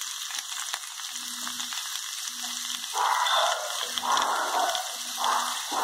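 Beet chunks frying in a little oil in a nonstick wok, sizzling steadily, with the sizzle swelling louder several times from about three seconds in.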